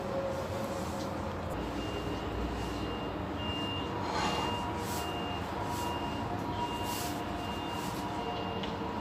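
Short high electronic beeps repeating evenly, about three every two seconds, starting nearly two seconds in, over a steady background noise. A short rustle about four seconds in.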